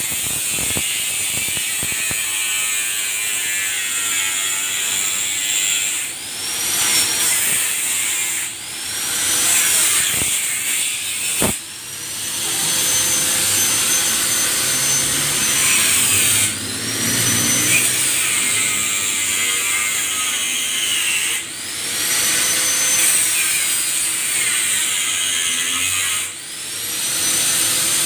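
Electric angle grinder grinding the steel lower body panel of a vehicle beside the front wheel arch, its motor whining steadily. About six times the sound dips and the pitch climbs back up as the disc is eased off and pressed back into the metal. A sharp click about a third of the way through.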